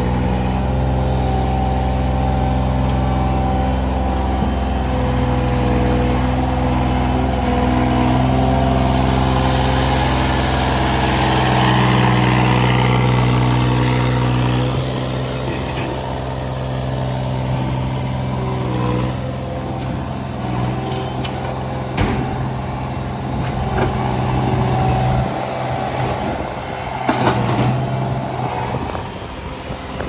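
Toyota 5SDK5 skid steer loader's engine running steadily under load. It works harder for a few seconds around halfway as the loaded arms are raised. A sharp knock about two-thirds through and clattering near the end come as concrete rubble is tipped from the bucket into a steel truck tray.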